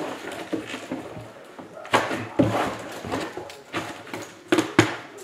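A few sharp knocks and taps amid rustling, two of them close together near the end.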